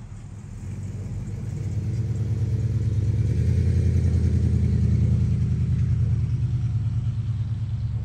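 A motor vehicle driving past: a low engine rumble that swells to its loudest about halfway through, then fades.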